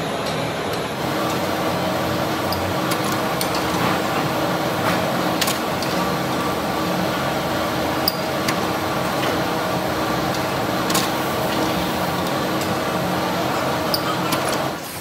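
Factory machinery running with a steady hum that sets in about a second in, with a few sharp clicks scattered through it.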